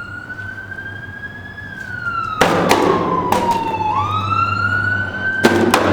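Emergency vehicle siren wailing, its pitch sweeping up and then slowly sliding down in a repeating cycle of about three seconds. Several sharp bangs come about two and a half seconds in and again near the end.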